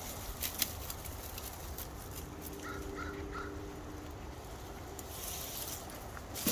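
A crow cawing three times in quick succession about three seconds in, over faint scattered clicks and rustles.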